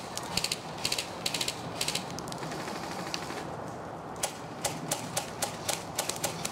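Airsoft guns firing: short bursts of rapid clicks over the first two seconds, then single shots about three or four a second from a little past the middle.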